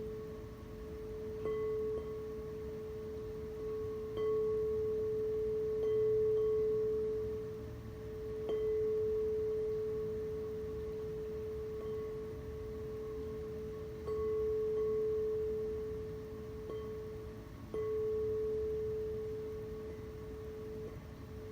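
Singing bowl ringing with one steady tone and fainter overtones, struck again every few seconds so that the tone swells and slowly fades after each strike.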